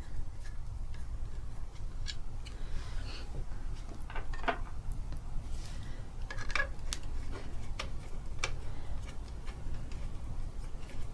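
Screwdriver working the metal motor mounting screws out of a White 173 sewing machine: scattered small metal clicks and scrapes, the clearest about 2, 4.5, 6.5 to 7 and 8.5 seconds in, over a low steady hum.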